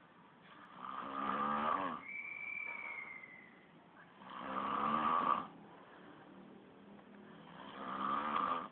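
A sleeping man snoring: three loud, rasping snores about three and a half seconds apart. A thin whistling tone follows the first snore.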